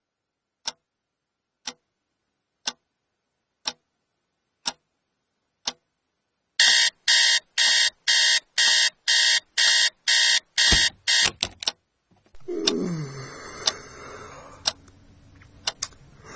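A clock ticks six times, once a second, then an electronic alarm beeps rapidly, about three beeps a second, for some five seconds. After the alarm stops there is a noisier stretch with a voice-like sound sliding down in pitch.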